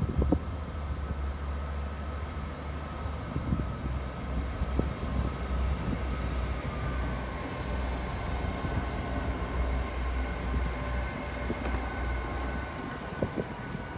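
CrossCountry Voyager diesel multiple unit arriving slowly: a steady low rumble from its Cummins underfloor diesel engines, with faint thin high-pitched tones above it. Brief wind buffeting on the microphone at the start.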